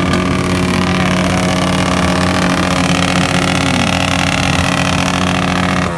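A motorcycle engine revved up and held at steady high revs, then let down at the very end, with other engines revving faintly underneath.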